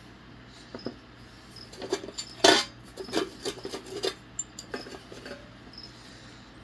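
Old metal hand tools clinking and clattering as they are handled and set down, a run of knocks with the loudest about two and a half seconds in.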